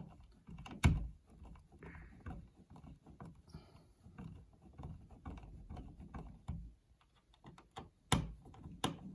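Small mechanical clicks and scrapes from a wall power outlet being handled and screwed into its electrical box, with a sharp click about a second in and another near the end.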